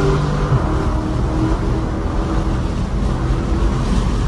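Muffler-deleted 6.4-litre HEMI V8 of a Dodge Challenger SRT 392, heard from inside the cabin while driving, with a deep exhaust rumble. A steady engine tone stops about half a second in, and the low rumble carries on.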